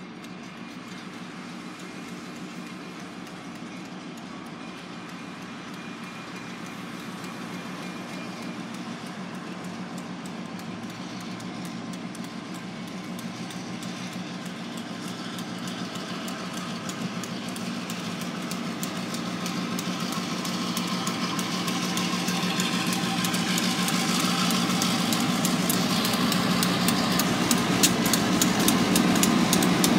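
New York Atlantic Railway freight train approaching, led by an EMD GP38-2 and an MP15AC diesel locomotive. The engines' steady drone grows louder until the lead locomotive passes close by near the end, with a quick clicking of wheels over the rails building up in the second half.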